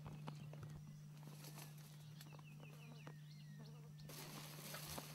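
Faint field sound: a low steady hum with scattered soft knocks, and a bird calling a quick run of short chirps about two seconds in. Around four seconds in the sound changes abruptly to an even hiss.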